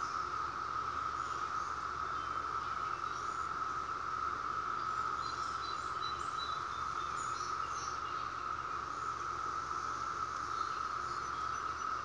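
Chorus of many periodical cicadas singing together: a steady, unbroken droning hum.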